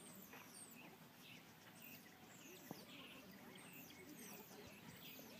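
Faint, high-pitched chirps and squeaks, many short notes each falling in pitch, repeating throughout over soft rustling in the grass.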